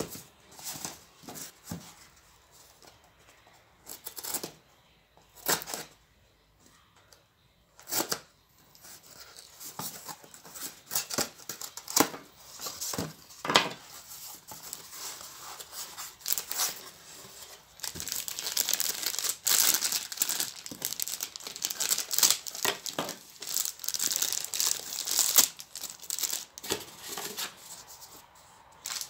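Cardboard packaging handled, with a few separate scrapes and knocks at first, then the box's flaps being opened and a plastic bag crinkling and rustling continuously through the second half as the wrapped respirator is taken out.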